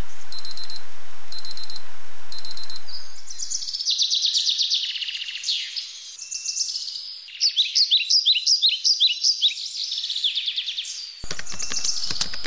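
Digital alarm clock beeping in short bursts of rapid pulses, about one burst a second, over a loud steady hiss. After about three seconds this gives way to birds chirping, and music comes in near the end.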